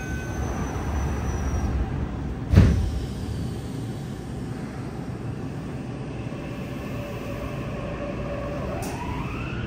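Interior of a Yokohama Blue Line 3000R subway car: the last notes of the door chime, then the doors sliding shut with a heavy thud about two and a half seconds in. Near the end the Mitsubishi IGBT-VVVF inverter starts a rising whine as the train begins to pull away.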